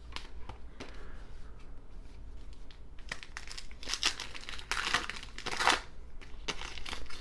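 Foil wrapper of a baseball card pack being torn open and crinkled in the hands, in scattered rustles with louder crackling tears about four and five seconds in.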